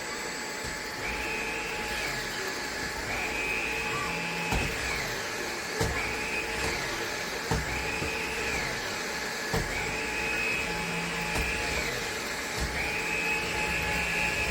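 Tineco A20 cordless stick vacuum running steadily. Its motor whine steps up and down in pitch every second or two, with a few sharp knocks along the way.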